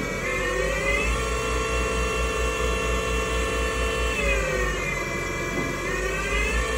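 GT27 CNC gang lathe running a cut under flood coolant: a machine whine whose pitch rises about a second in, holds steady, sinks again around four to five seconds in and climbs back near the end as the spindle speed changes, over the hiss of coolant spray.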